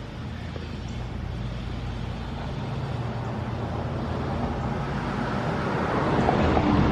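Motor vehicle running: a steady low engine hum with road noise, getting louder toward the end.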